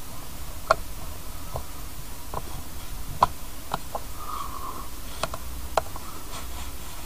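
Small screwdriver working screws into an aircraft instrument gauge's case: about eight irregular, sharp little clicks and scrapes as the screws are tightened down, over a low steady hum.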